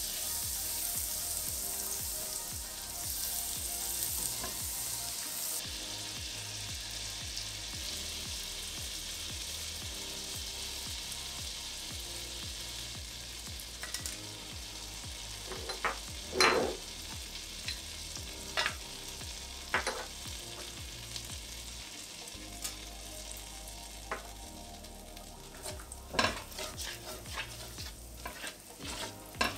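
Butter and oil sizzling in a stainless steel pot as whole spices fry, with a hiss that is strongest for the first few seconds. A silicone spatula stirs and scrapes the pot, giving several sharp taps in the second half, the loudest about halfway and a run of them near the end.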